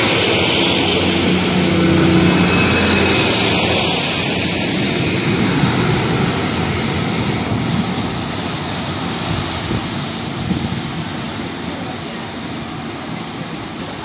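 Class 150 Sprinter diesel multiple unit pulling away under power, its underfloor diesel engines loud and steady at first, then fading as the train draws away.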